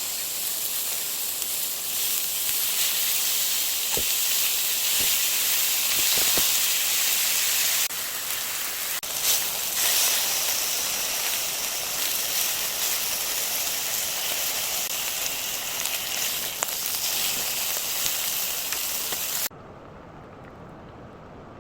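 Food frying in a hot pan: a dense sizzle with scattered pops and crackles. The sizzle cuts off abruptly about two seconds before the end, leaving only a faint hiss.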